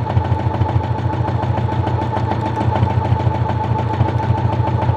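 Brother XR9550 sewing machine running steadily at speed: a constant motor whine with a rapid, even ticking of the needle stitching. The fabric is guided by hand for free-motion quilting on a straight stitch.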